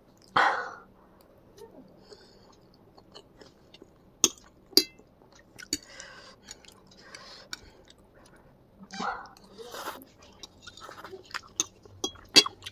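Close-up eating sounds: a person chewing a mouthful of boiled egg and spicy instant noodles, with soft wet mouth noises and a few sharp clicks of a metal fork on the plate.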